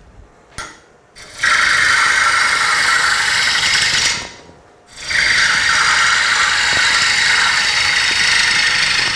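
Bowl gouge cutting into a spinning Bradford pear bowl on a wood lathe, shearing off shavings with a steady rough hiss in two passes, one of about three seconds and a longer one after a short pause. A brief light touch of the tool comes about half a second in.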